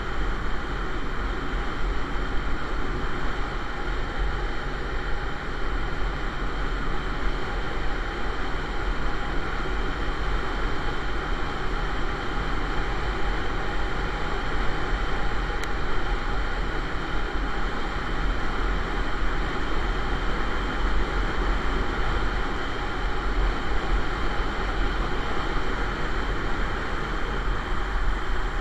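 Steady wind rush and road noise from a motorcycle cruising at constant speed, heard through a bike-mounted camera, with heavy low rumble on the microphone and no change in pace.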